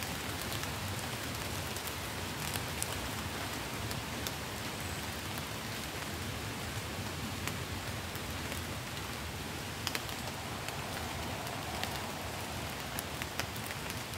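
Steady rain falling on woodland leaves, with scattered sharp taps of water dripping off the foliage.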